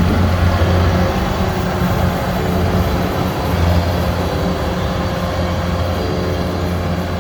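Rice combine harvester running steadily, a loud low engine drone with a mechanical rush over it.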